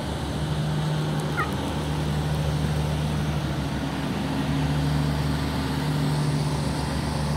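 Steady low hum with a brief faint chirp about a second and a half in.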